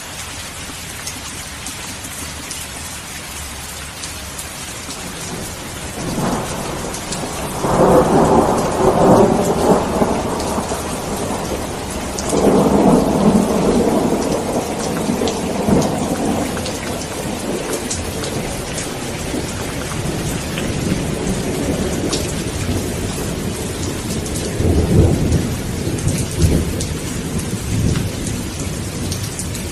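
Steady rain falling, with rolling thunder rumbling in several long swells, the loudest a few seconds in and again around the middle, with a softer roll near the end.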